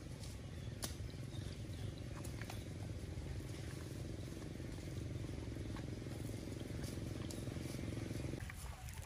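A steady low engine hum, some motor running, that cuts off abruptly near the end, with a few faint clicks over it.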